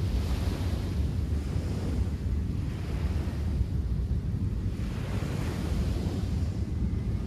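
Wind buffeting the microphone with a heavy low rumble, over surf washing in on a beach, its hiss swelling and fading every couple of seconds.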